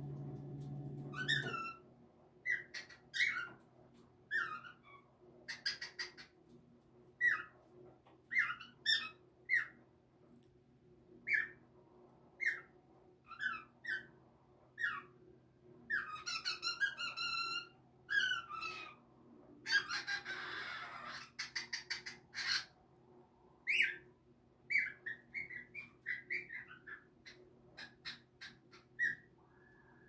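Cockatiel giving a long series of short, separate chirping whistle calls, many falling in pitch, with one longer, harsher, noisier call about twenty seconds in. A low steady hum cuts off in the first couple of seconds.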